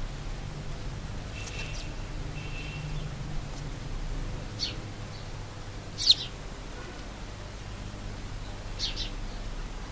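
House sparrows chirping: a handful of short, sharp chirps a second or more apart, the loudest about six seconds in, over a low steady hum.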